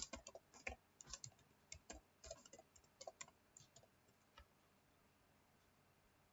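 Computer keyboard being typed on: a quick, irregular run of light key clicks that stops about four seconds in.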